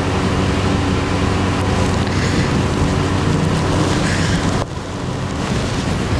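Steady rushing noise over a low hum. The upper part thins out suddenly about four and a half seconds in.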